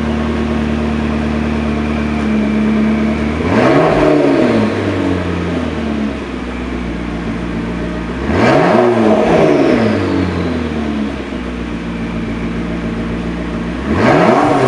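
McLaren MP4-12C Spider's 3.8-litre twin-turbo V8 idling through its sport exhaust, revved three times about five seconds apart. Each rev climbs sharply and drops back to idle within about a second.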